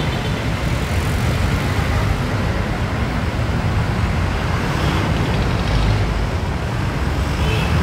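Steady road traffic on a busy multi-lane avenue: cars, jeepneys, trucks and motorcycles passing in a continuous wash of engine and tyre noise, heaviest in the low end.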